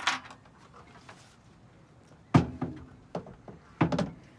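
A few sharp wooden knocks and thumps from a sailboat's companionway ladder being handled and shifted; the loudest comes about halfway through with a short low ring after it, and two more come close together near the end.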